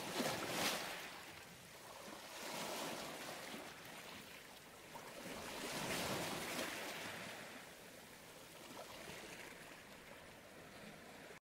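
Small waves washing against the shore, the sound swelling and fading every few seconds, then cutting off abruptly near the end.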